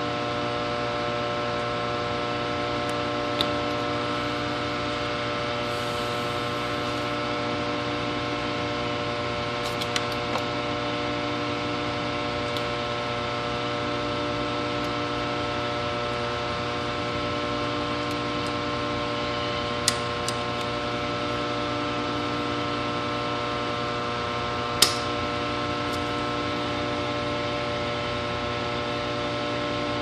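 Steady electrical mains hum, with a handful of sharp clicks from wire strippers cutting and stripping small wires, the loudest about 25 seconds in.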